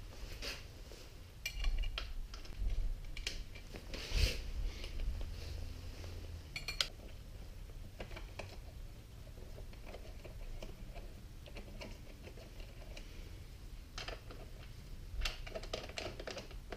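Scattered light clicks, taps and short rattles of gloved hands handling plastic and metal motorcycle parts by the battery and air box, with a sharper knock about four seconds in.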